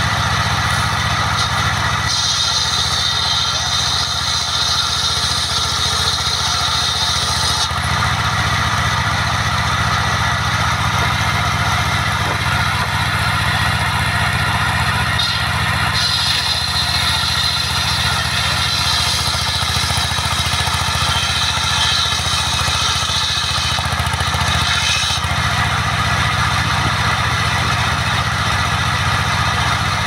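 Engine of a portable sawmill running steadily, with a higher hiss that comes and goes in stretches of several seconds as the saw cuts timber.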